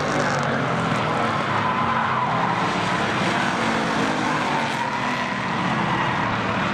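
Street stock race car's engine running at speed round the oval, with a wavering tire squeal through the turn.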